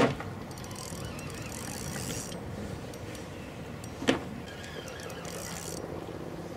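Spinning reel on a feeder rod whirring in short bursts while a hooked carp is played, with two sharp knocks, one at the start and one about four seconds in.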